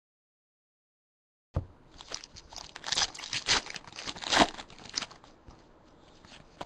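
Trading cards being handled and flipped through by hand, with crisp clicks and the crinkle of pack wrappers. It is silent for about the first second and a half, then the card noise comes quickly, with the loudest snaps about three to four and a half seconds in.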